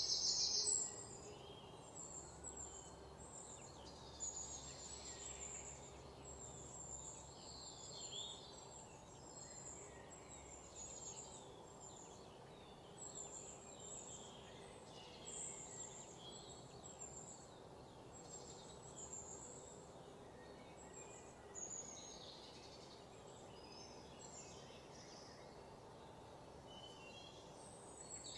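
Faint outdoor ambience: small birds chirping in short, repeated high calls over a low steady hum, with a brief louder high-pitched sound in the first second.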